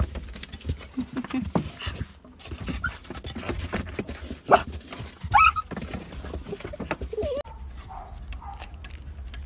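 A young dog scuffling and rolling in straw bedding, with rustling and small knocks throughout. It gives a few short high yelps around the middle.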